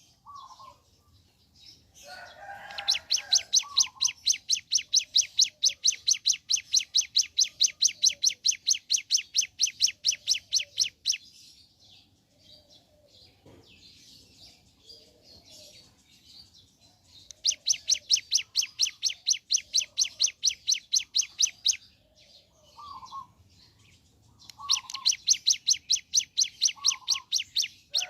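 A hill prinia (ciblek gunung) sings long, rapid, machine-gun-like 'ngebren' trills of evenly repeated high notes, about seven a second. There are two long runs, and a third starts near the end. Softer short, lower chirps fall between them.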